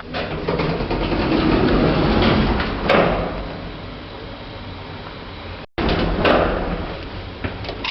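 Hotel passenger lift running: a steady low hum from the car and its machinery, with swells of rushing noise and a sharp click about three seconds in and again near the end, typical of lift doors and car movement.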